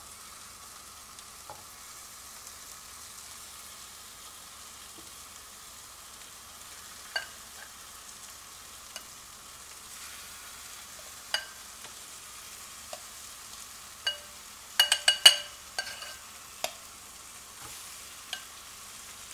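Spice-marinated chicken wings sizzling as they are laid piece by piece into a hot nonstick frying pan: a steady hiss, broken by sharp clicks of metal tongs against the pan, with a quick run of clicks about 15 seconds in.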